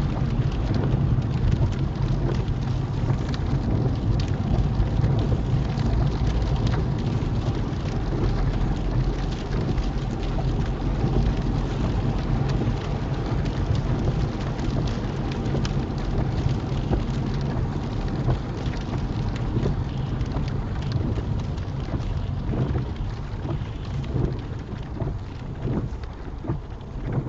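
Rain hitting the windscreen of a small car, heard from inside the moving car as a dense run of fine ticks over a steady low road and engine rumble. Near the end the rumble eases and single drops stand out more.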